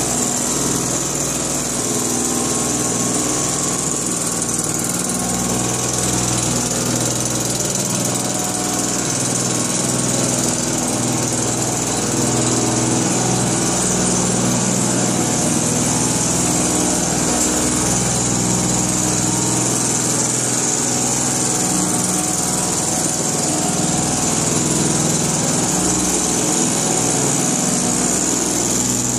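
Two-stroke backpack mist blower running steadily, its engine drone under a constant rush of air from the blower tube as it blows powder out.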